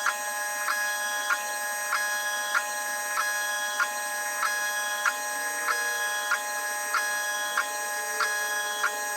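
Laser engraver rastering an image into wood: its stepper motors whine steadily while the head sweeps back and forth, with a sharp tick at each reversal about every two-thirds of a second.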